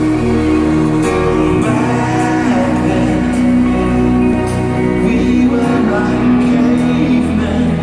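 Live pop concert music in an arena, loud and steady: sustained chords and bass with men singing, recorded from the audience on a phone microphone.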